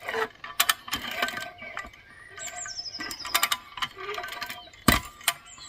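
Irregular metallic clicks and clacks of a hand ratchet cable puller's lever and pawl being worked by hand, with one loud knock about five seconds in. The pawl does not spring back to lock into the sprocket under tension and has to be pushed in by hand.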